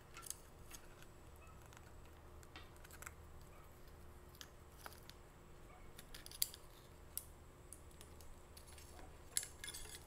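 Faint, scattered metallic clicks and clinks of a bicycle chain being fed by hand through the rear derailleur cage and around its jockey pulleys, with a small cluster of clicks near the end.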